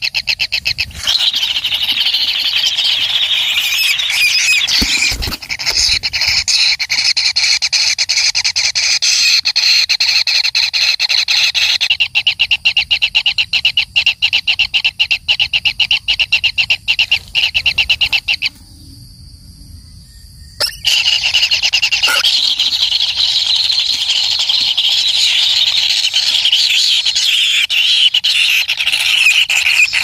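White-throated kingfisher nestlings begging: a loud, continuous, fast-ticking buzz from the brood. It breaks off for about two seconds a little past the middle, then starts again.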